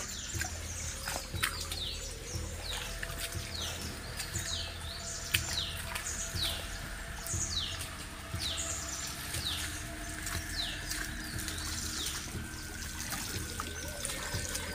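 A bird repeating a short, high, downward-sliding call roughly once a second over a soft wash of flowing stream water. A few sharp knocks or splashes stand out, the loudest about five seconds in.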